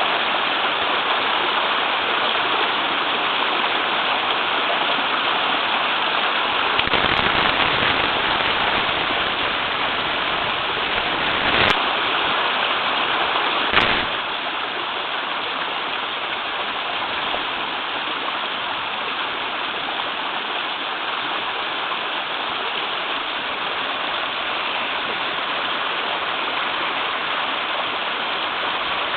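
Mini waterfall on a river, water rushing and splashing steadily. A couple of brief thumps stand out around the middle, after which the rush settles slightly quieter.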